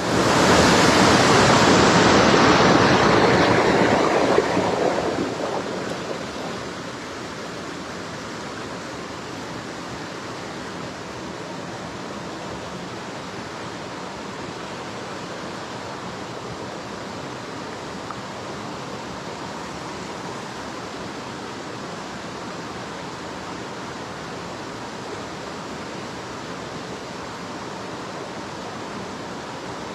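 Steady rush of running water, a small hill stream, louder for the first five seconds or so, then settling to a lower, even rush.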